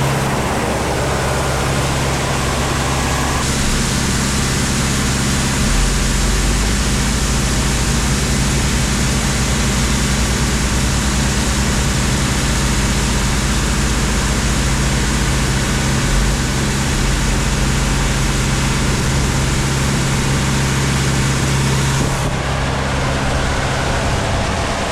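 A machine's engine runs steadily under the rushing hiss of shelled corn pouring out in a stream. The hiss swells a few seconds in and eases near the end.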